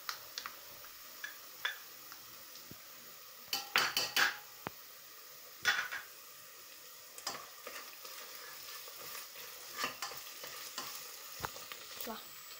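Chopped onion and garlic frying in oil in a stainless steel pot, a soft sizzle with scattered small pops, with tomato paste just added on top. A spoon scrapes and knocks against the pot several times, the loudest clatter about four seconds in.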